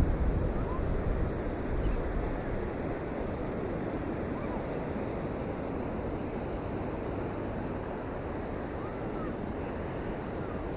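Storm surf breaking steadily on the beach in hurricane conditions, with wind buffeting the microphone, loudest in the first second.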